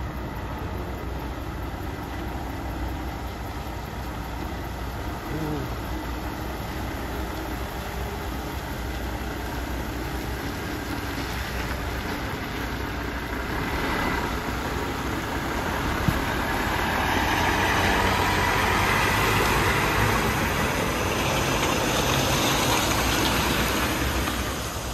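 Diesel semi-trailer truck pulling a container trailer drives off at low speed. Its engine rumble grows louder as it approaches and passes close, with the hiss of tyres on the wet pavement in the last several seconds.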